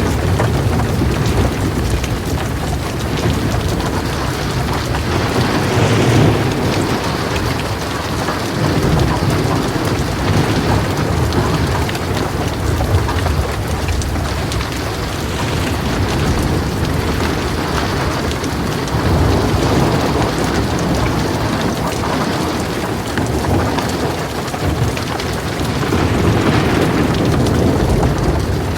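Heavy rain falling steadily, with low rolling thunder that swells and fades several times.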